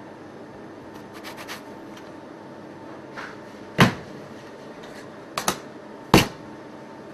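Sharp knocks of kitchen utensils set down on a stainless-steel worktable: a few light clicks, then three distinct knocks, one of them a quick double, over a steady hum.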